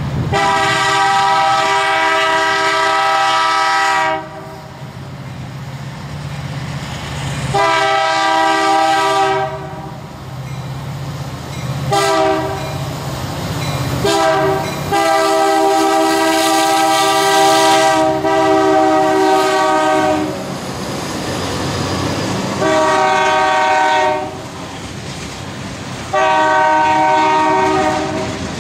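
Canadian National EMD SD75I diesel locomotive sounding its air horn, a chord of several notes, seven times: two long blasts, a few short ones, a very long one of about five seconds in the middle, then two more, over the steady rumble of its diesel engine. Near the end the freight cars roll past with wheel clatter.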